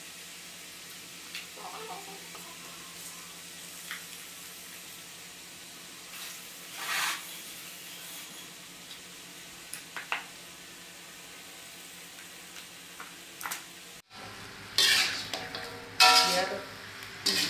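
Small fish frying in a metal wok, a low steady sizzle with a few scattered pops. Near the end a metal spatula starts scraping and stirring in the wok, several loud strokes.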